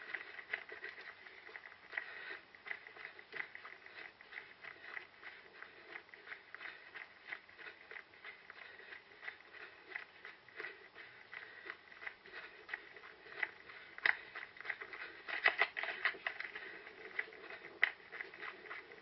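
A runner's footsteps over rough ground, a quick irregular patter of steps and brushing, heard from a head-mounted camera, with a few louder knocks past the middle.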